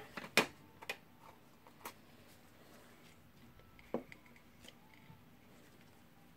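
A few sharp, light clicks and ticks of handling small tools: a small plastic tool case clicked open, then metal taps as a tool works at the impact driver's hammer housing.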